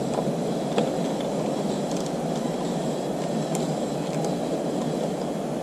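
Steady rushing background noise, with a couple of light clicks as hands handle metal parts and the plugs on the Laycock overdrive housing.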